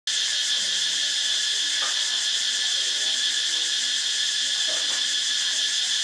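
Loud, unbroken insect chorus of cicadas or tree crickets: a steady high-pitched buzz with a fine, rapid pulse, slightly deafening.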